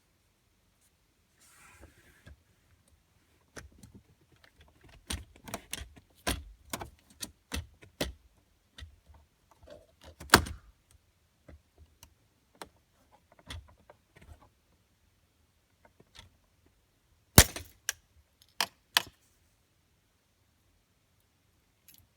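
Plastic trim tool prying at a BMW gear shift trim cover: a scatter of small clicks, scrapes and knocks from the console plastic, ending in three sharp snaps about three-quarters of the way through as the cover's clips let go.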